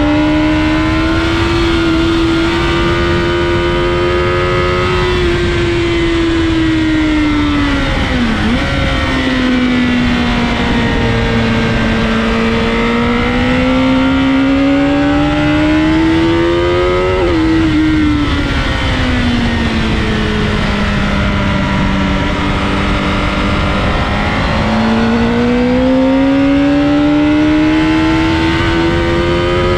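Sport motorcycle engine heard from onboard at track speed over wind rush. It rises under throttle and falls away, dips sharply about eight seconds in, and drops at an upshift from second to third about seventeen seconds in. Near the end it climbs hard again.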